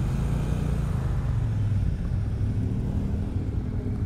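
Triumph Bonneville Speedmaster's 1200cc parallel-twin engine running steadily at low revs as the bike pulls away slowly, with other motorcycles running close by.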